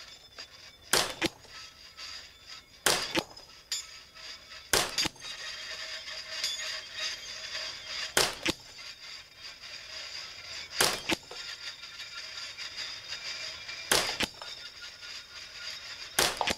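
Kidd Supergrade Ruger 10/22 semi-automatic .22 LR rifle firing seven single shots, unhurried and two to three and a half seconds apart, at a rack of steel KYL targets; every shot is a hit.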